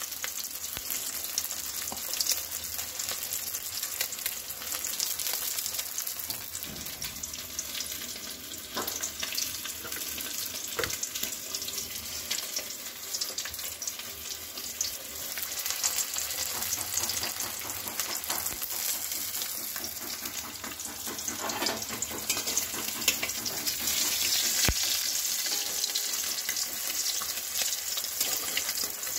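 Fish pieces frying in hot oil in a wok, a steady sizzle and crackle, with a few sharp clicks here and there.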